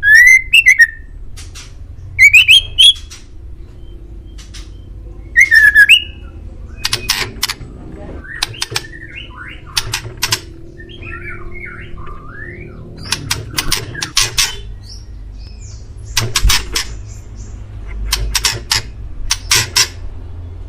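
Male white-rumped shama (murai batu) singing: loud rising whistled notes three times in the first six seconds, among many short sharp clicking calls and quick varied warbled phrases.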